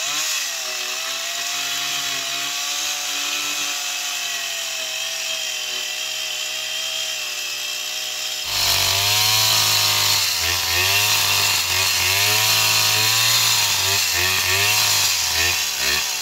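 Two-stroke chainsaw cutting into a large log, the engine held at steady high revs. About eight and a half seconds in it turns abruptly louder and lower, the engine speed then rising and falling again and again as the chain works through the wood.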